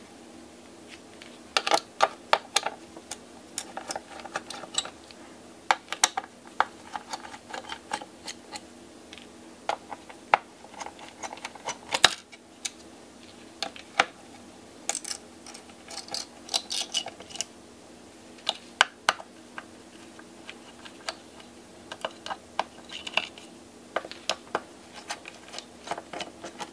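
Irregular small metallic clicks and ticks of a Phillips screwdriver working screws out of the back of a graphics card's circuit board, with occasional ringing clinks as loose screws are set down.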